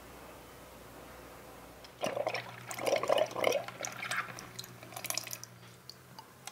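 Water from a miniature kitchen tap running and splashing into a small stainless steel pot in the sink. It starts about two seconds in and tapers off near the end, with a faint low hum underneath.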